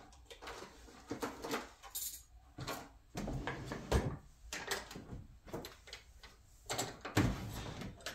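Rummaging in a wooden sideboard drawer: irregular knocks, clatter and rustling of things being moved about, with the loudest bumps a few seconds in and near the end.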